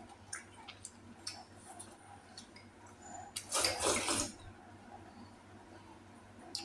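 Eating at the table: light clicks of utensils against dishes, and a loud watery sound lasting about a second, starting about three and a half seconds in.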